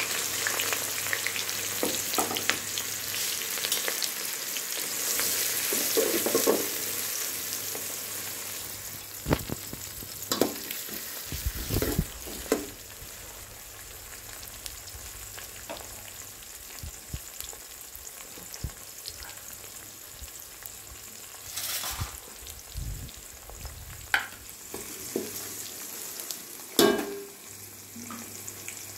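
Sliced onions and whole spices sizzling in hot oil in an aluminium pot. The sizzle is loudest in the first few seconds and then dies down, with several sharp knocks of a spoon stirring against the pot.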